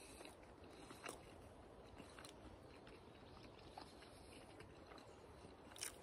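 Near silence with a few faint, short mouth clicks from chewing: about a second in, again a second later, and once near the end.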